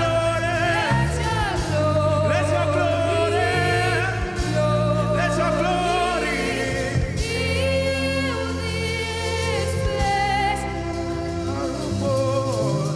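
Live gospel worship music: keyboard and bass chords under wordless, melismatic singing that bends and runs up and down.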